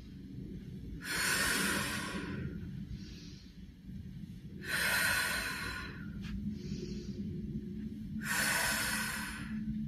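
A woman's forceful breaths out, three loud exhales about three and a half seconds apart, each lasting about a second, with fainter breaths between them. She breathes out with each push against a resistance mini band during banded side steps.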